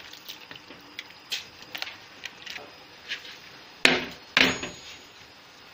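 Rice being tipped from a plastic bowl into a large aluminium pot of boiling water: light clicks and knocks of handling, then two loud, short bursts about four seconds in as the rice pours in.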